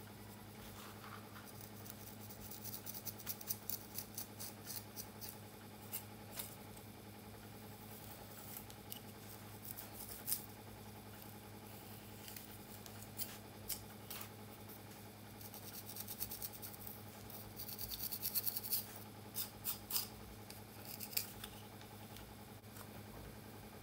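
Fingers pulling apart and working through tightly coiled hair as cornrows are taken down, giving close crackling and scratching in irregular clusters. A steady low hum runs underneath.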